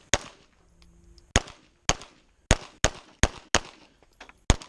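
Semi-automatic pistol fired rapidly, eight sharp shots, several in quick pairs about a third of a second apart, each followed by a short echo.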